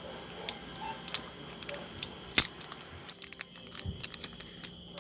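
Hands handling a phone box and its accessories: scattered clicks and light taps of cardboard and plastic, with one sharper knock about halfway through, over faint steady electrical hum.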